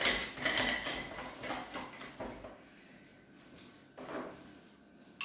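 Stainless-steel cream whipper siphon having its head screwed on: a quick run of metallic clicks and scrapes for about two and a half seconds, then a single knock about four seconds in.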